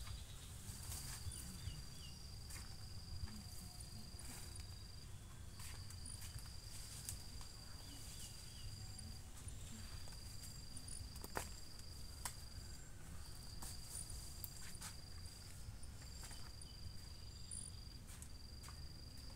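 An insect singing a steady, high, thin trill in phrases a few seconds long with short breaks between them, over faint background noise and scattered sharp clicks.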